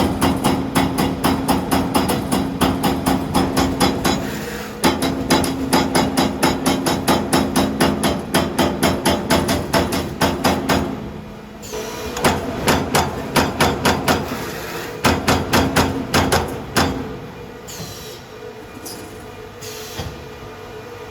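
CNC servo turret punch press punching sheet metal: a fast, even run of sharp punching strokes, several a second, over a steady low hum, pausing briefly about halfway and going quieter and sparser toward the end.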